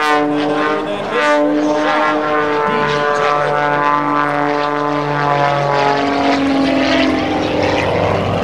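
Aerobatic biplane's 400-plus horsepower piston engine and propeller running at high power in flight, a loud buzzing engine note whose pitch wavers and drops a little about six seconds in.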